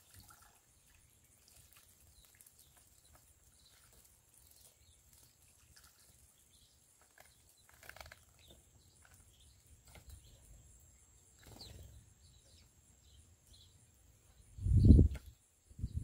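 Faint trickling and splashing water with a few faint chirps from house sparrows bathing in a small fountain bird bath. Near the end comes a short, loud, low rumble.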